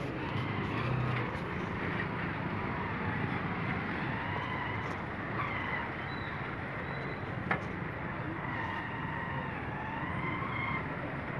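Street traffic noise among vehicles: engines running and idling under a steady road hum, with faint distant voices and one sharp knock about seven and a half seconds in.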